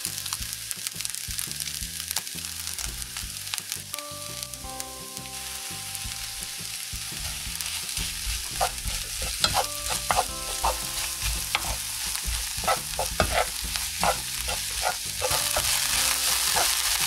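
Egg fried rice sizzling in a frying pan while a spatula stirs and tosses it. From about halfway on there are frequent sharper scrapes and taps of the spatula against the pan.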